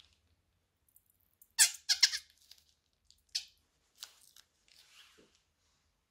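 Small plastic zip bag crinkling as it is squeezed, with wet squelching squirts as thick red and blue liquid is pushed out of its cut corner. The loudest crackles come about one and a half to two seconds in, with a few smaller ones after.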